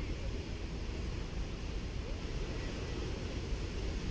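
Gentle Caribbean surf washing onto a sandy beach: a steady hiss of waves over a deep, unbroken rumble.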